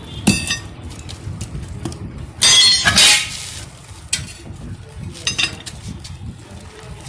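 Metal clanks and knocks as tools strike and work against a tractor trolley tyre's steel wheel disc while the tyre is being freed from it. There are a few sharp knocks, with the loudest, a ringing double clank, a little before halfway.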